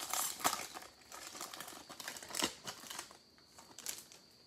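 Foil trading-card pack wrapper crinkling as it is torn open and handled. Dense crackling comes in the first second, then occasional sharp crinkles that die away.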